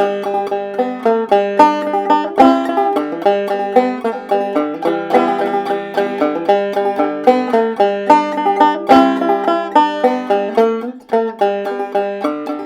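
Clawhammer banjo playing an instrumental break of quick picked notes over a steady held low note, with a short dip in the playing near the end.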